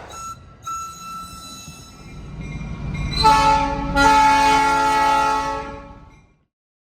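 Multi-note locomotive air horn sounding a chord. It is faint at first, then loud about three seconds in, with a brief break, and it fades out and stops near the end.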